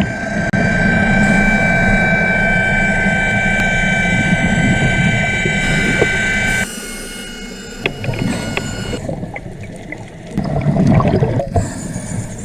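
A boat's engine running steadily with a whining hum, then dropping off sharply about two-thirds of the way through to a quieter, uneven wash with scattered knocks.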